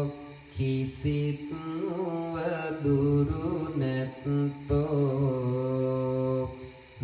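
A Buddhist monk chanting devotional verses in a slow, melodic male voice, holding long notes, with short breaths near the start and again near the end.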